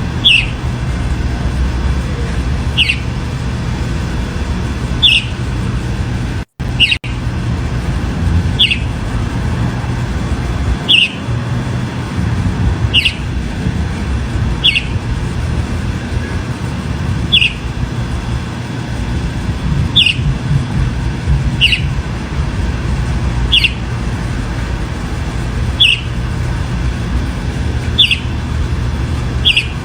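Chalk-browed mockingbird repeating one short, falling call about every two seconds over a steady low rumble like distant traffic. The sound cuts out for an instant about six seconds in.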